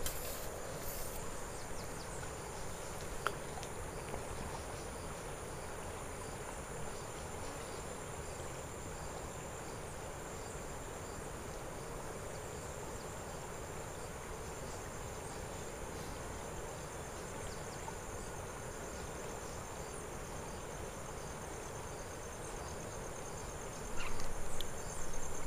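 Steady high-pitched insect chirring over the low rush of a flowing river, with louder handling noise near the end.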